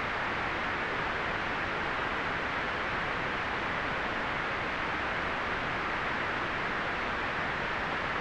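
Continuous generated white noise: a steady, even hiss that never changes in level.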